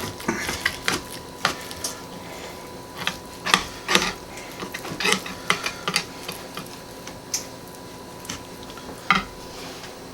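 A kitchen knife slicing a raw chicken breast in half lengthwise, making irregular light clicks and knocks, some in quick clusters.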